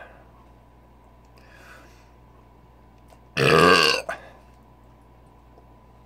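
A man's loud belch, about three and a half seconds in and lasting under a second, brought up by gulping carbonated malt liquor.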